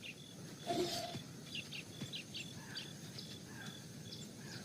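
Small birds chirping, many short high calls repeating throughout, with one brief louder sound under a second in.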